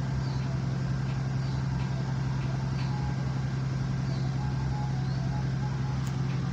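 Diesel engine of a Freightliner Century Class semi-truck idling steadily, a constant low hum and rumble.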